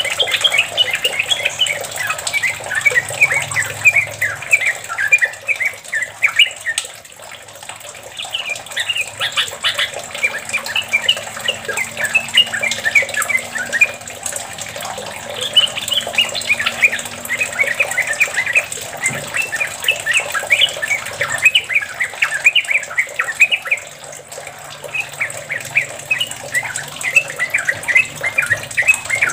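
Yellow-vented bulbul singing a long, rapid rolling song (the 'ropel' that bird-keepers prize): dense bubbling runs of short notes, with brief lulls about 7 s and 24 s in.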